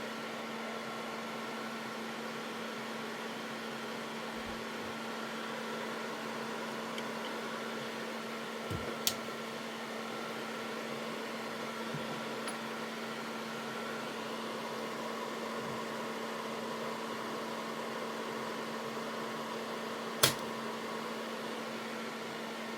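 A steady machine hum with a low tone, with a sharp click about nine seconds in and a louder click about twenty seconds in.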